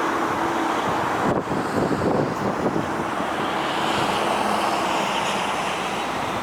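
Jet noise from a Boeing 787-8's Rolls-Royce Trent 1000 engines, mixed with strong wind buffeting the microphone, gustiest about one to three seconds in.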